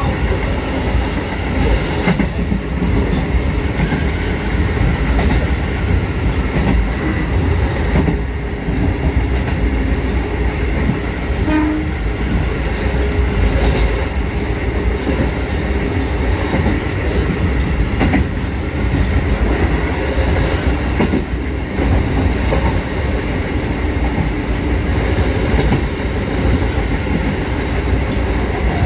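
Kotoden 1200-series electric train running along the line, heard from inside the front cab: a steady rumble of wheels on rail, with a clack over a rail joint now and then.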